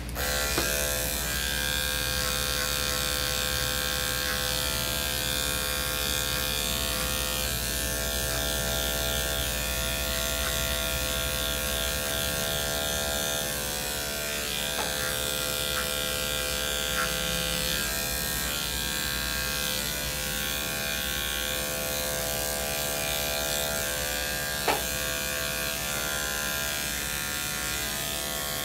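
Electric dog grooming clippers switch on just after the start and then run with a steady buzzing hum while trimming the hair on a dog's head, with a few faint ticks.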